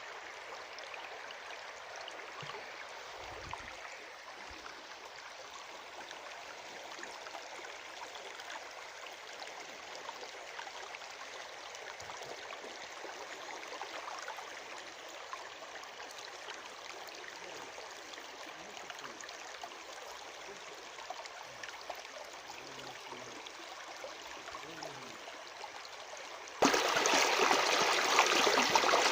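Natural stream water running and trickling steadily. About 27 seconds in it cuts suddenly to a much louder, fuller rush of water.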